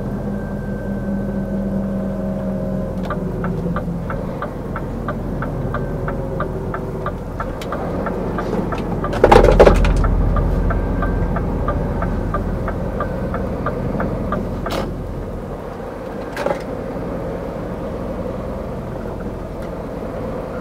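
Scania R450 truck's six-cylinder diesel engine heard from inside the cab as the truck slows and turns. A turn-signal relay clicks steadily at about two to three clicks a second from about three seconds in until about fourteen seconds in. A loud, brief rushing burst comes about nine seconds in.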